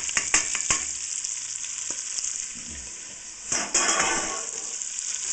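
Diced carrot, onion and celery frying in hot bacon fat in a stainless steel pot: a steady sizzle, with a few utensil clicks against the pot in the first second and a sudden louder rush of sizzling about three and a half seconds in.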